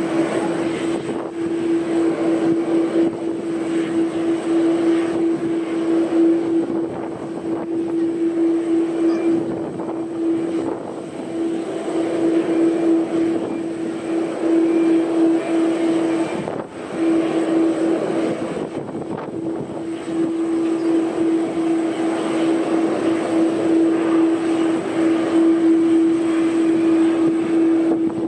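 Airbus A330-300 airliner's turbine whine during pushback: a steady droning tone over a broad rushing hiss, with a short dip a little past halfway.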